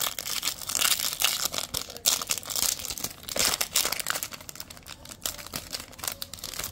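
Foil trading-card pack wrapper crinkling and tearing as the pack is opened, a dense irregular crackle that stops abruptly at the very end.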